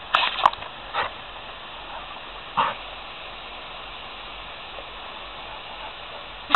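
A Labrador retriever giving a few short barks while it snaps at the spray from a garden hose: a quick cluster near the start, one about a second in and another about two and a half seconds in. A steady hiss of hose spray runs underneath.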